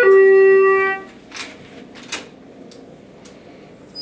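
Elevator arrival chime: the lower second note of a falling two-tone chime rings for about a second. Faint knocks and clicks follow as the car doors open.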